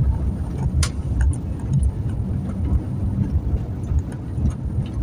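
Pickup truck cabin while driving slowly: steady low engine and road rumble, with a few light clicks and rattles, the sharpest about a second in.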